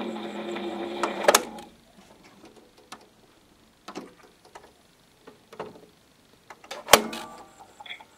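Home-made mechanical disc recorder with its stylus on a spinning clear plastic CD-spindle lid: a steady mechanical buzz that stops with a click about a second in, followed by scattered clicks and knocks, the loudest near the end.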